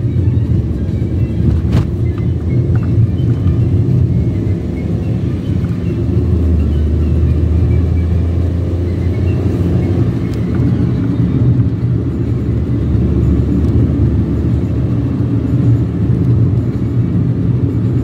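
Steady low rumble of a moving car, engine and tyre noise heard from inside the cabin, swelling slightly for a few seconds near the middle.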